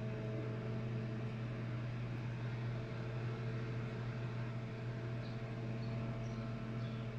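LG microwave oven running with a steady low hum, the sign that it is heating again now that its faulty door switch has been replaced.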